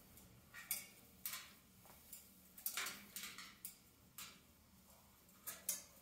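Faint, irregular scratches and clicks, about ten short scuffs spread through, from a parrot shifting its feet and beak on its plastic perch tray.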